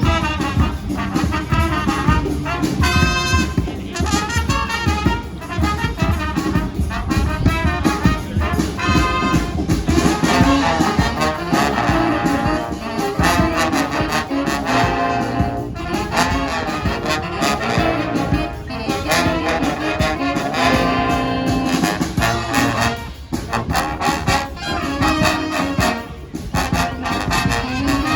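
Street brass band playing a tune live, its horns holding some long high notes.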